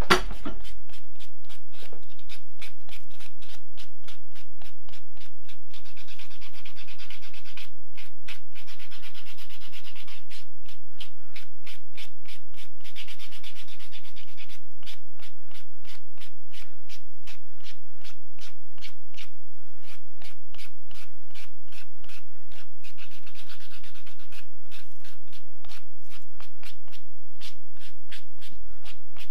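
A small leather washer being hand-sanded against a sanding block to smooth its cut edges: quick, repeated rasping strokes, at times louder and brighter. A sharp click at the very start.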